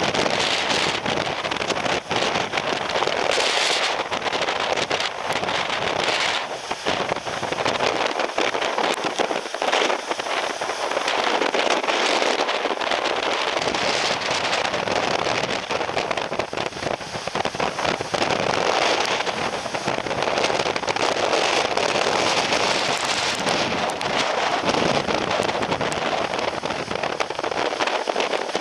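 Typhoon wind and driving rain: a loud rushing that swells and eases in gusts, with constant crackling from the wind and rain hitting the microphone.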